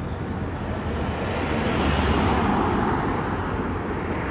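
Roadside traffic noise: a vehicle passing on the road, its rushing tyre and engine noise swelling about a second in and fading again.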